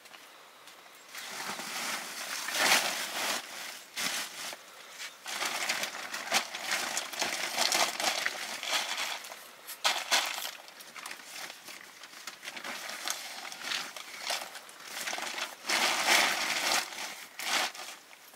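Irregular rustling and crinkling with a few sharp clicks, starting about a second in and coming in uneven bursts.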